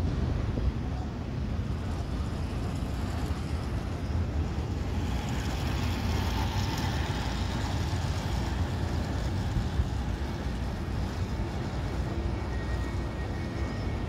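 Airbus A320neo airliner on approach with gear down, its jet engines making a steady rushing noise that grows louder from about five seconds in as it nears overhead, with a faint steady whine near the end. Under it is a low rumble.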